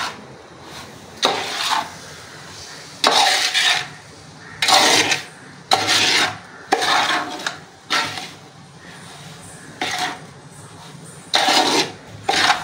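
A metal ladle scraping through a dry semolina-and-sugar rava laddu mixture against a large aluminium pot, in repeated rasping strokes about one every second or two. The mixture is being kept moving over low heat so it doesn't catch on the bottom of the pot.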